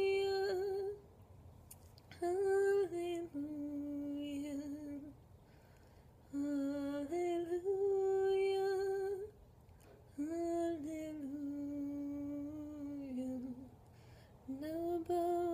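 A woman's voice singing alone, unaccompanied, in slow long-held notes, in about four phrases with short breaths between them.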